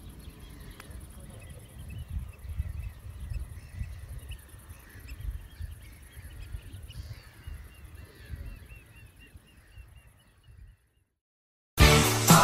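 Geese honking and calling as a flock, over a low, gusty rumble; near the end a quick run of short repeated calls before the sound cuts off. Loud upbeat music starts in the last moment.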